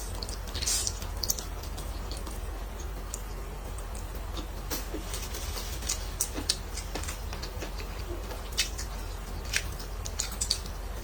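A person chewing and eating close to the microphone, with scattered sharp wet smacks and clicks over a steady low hum.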